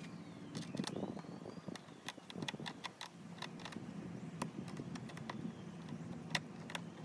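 Irregular small clicks and taps of a Phillips screwdriver and fingers on a plastic cowl cover as the two small screws of a van's cabin air filter intake cover are backed out.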